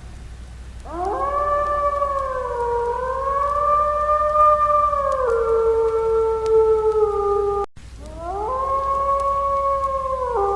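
Wolves howling. A long howl rises about a second in, wavers and holds, and a second, lower howl overlaps and takes over about halfway through. After a sudden brief gap, a new howl rises and holds near the end.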